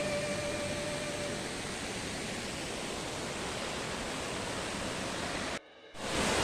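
Steady rushing of a waterfall. Background music fades out in the first second or so, and the sound cuts out for a moment near the end.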